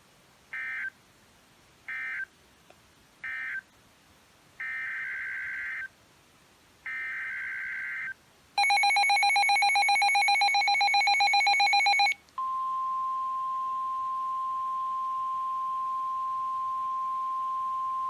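Emergency Alert System data bursts: three short screechy bursts (the end-of-message code of one high wind warning), then two longer bursts (the header of the next). About eight and a half seconds in comes a loud, warbling two-tone attention signal lasting about three and a half seconds, and then a steady single alert tone.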